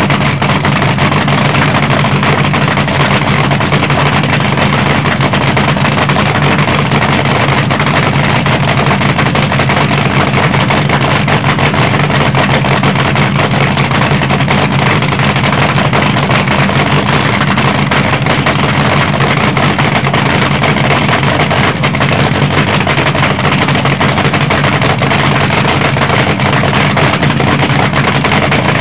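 Nitromethane-burning supercharged V8 of a front-engine AA/FD dragster idling in a loud, steady cackle with open zoomie headers.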